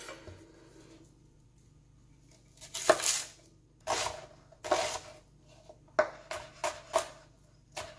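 Chef's knife chopping a white onion on a plastic cutting board. The first couple of seconds are quiet, then a few separate cuts follow, and near the end there is a quick run of knife knocks on the board.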